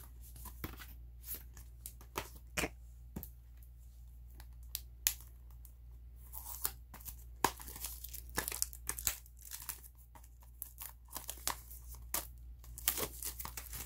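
Plastic shrink wrap on sealed album boxes crinkling and rustling as the boxes are handled and shuffled, with scattered sharp clicks and taps throughout and denser crackling twice.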